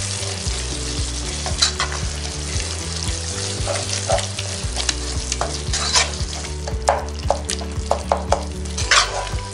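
A wooden spoon stirs a thick onion-tomato masala frying in oil in a stone-coated nonstick pot: a steady sizzle with many short scrapes and taps of the spoon against the pan.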